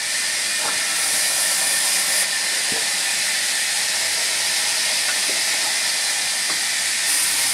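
Sawmill saw running and cutting through a log, a steady loud hiss.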